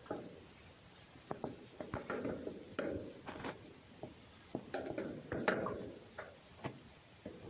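Wild red fox scolding in displeasure: irregular short rasping bursts of chattering, mixed with sharp clicks.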